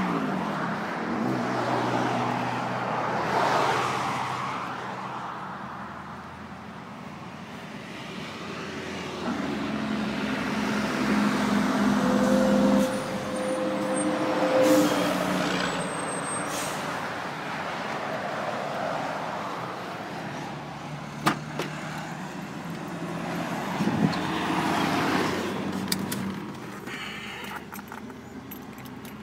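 Road traffic going by: several cars and trucks swell and fade in turn. Two sharp clicks come about two-thirds of the way through.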